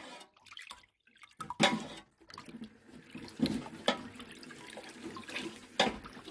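A metal ladle stirring sugar-and-lime water in a large metal pot: sloshing and splashing, with a few sharp knocks, the loudest about a second and a half in and another near the end.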